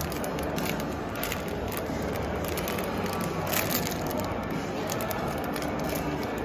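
Foil wrapper of a Bearbrick blind-box figure crinkling as it is torn open and handled, in irregular crackles with a louder rustle a little past halfway.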